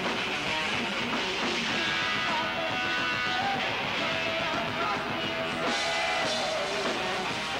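Rock band playing live: electric guitar over bass and drums, loud and steady, with a few held notes partway through.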